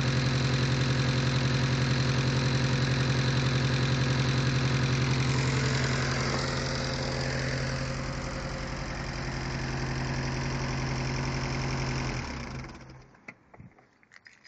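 Mitsubishi Eclipse's turbocharged 4G63T inline-four idling with an even, rhythmic knock that the owner suspects is lifter tick or a spun bearing. Near the end the engine is shut off and runs down to quiet, leaving a few clicks.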